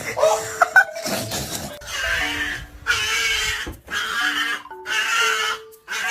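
A dog making a run of raspy, breathy grunting noises, about one a second, over background music with held notes.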